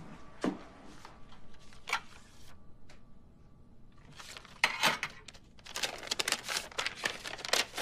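Paper rustling and crinkling as a folded note is pulled from under a napkin and unfolded, with a few soft knocks in the first two seconds.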